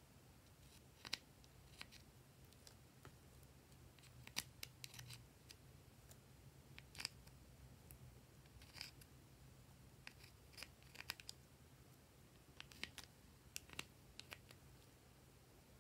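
Faint, irregular scraping and clicking of a plastic spatula digging into the pans of a toy makeup palette, over a low steady hum.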